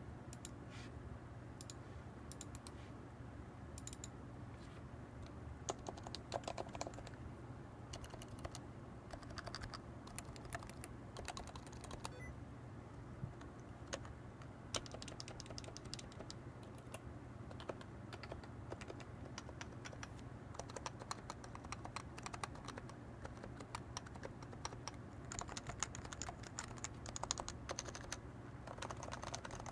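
Typing on a Leopold FC660C keyboard with 45 g Topre electrostatic capacitive switches and PBT keycaps: a steady stream of soft keystrokes at an uneven pace, in quick runs with short pauses. A steady low hum runs underneath.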